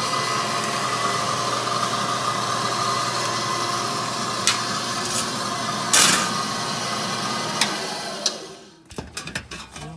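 Pittsburgh lock-forming machine running steadily with a constant hum as a sheet-steel panel is fed through its rolls to form a Pittsburgh seam, with a few sharp metallic clicks from the sheet. Near the end the machine winds down and goes quiet.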